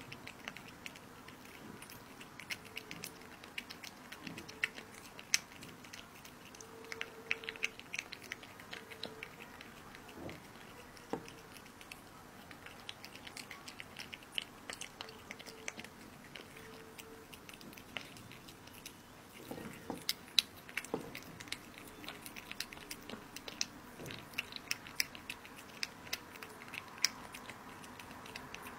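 A cat eating raw minced meat: wet chewing and lip-smacking, with many sharp irregular clicks throughout.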